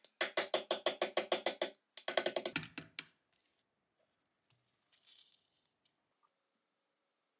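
Quick metallic strokes, about ten a second, in two runs over the first three seconds, from the rusted, seized Colt Vest Pocket pistol being worked in a vise. About five seconds in comes a short hiss of Kroil penetrating oil sprayed from an aerosol can through its straw.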